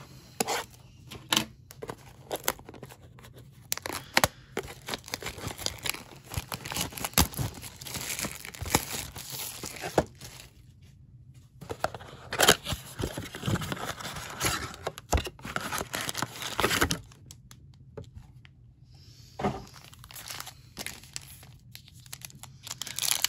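A cardboard trading-card blaster box being torn open by hand, its seal and flap ripping, then foil card packs crinkling as they are handled and pulled out. The tearing and crinkling comes in irregular stretches with sharp clicks and a couple of brief pauses.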